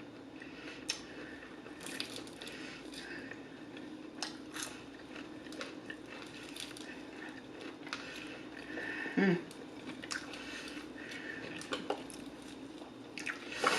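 Close-miked chewing and biting of Extra Crispy fried chicken, with many short crunches and wet mouth sounds. A short hummed "mmm" comes about nine seconds in.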